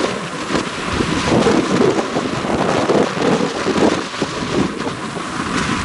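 Wind gusting on the microphone over the steady rushing roar of water pouring through a breached sand bar between a lake and the sea.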